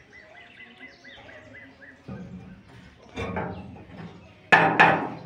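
A bird chirping in a quick, even run for the first two seconds, then a few thuds and knocks of footsteps in a farm trailer as someone climbs out, the two loudest close together near the end.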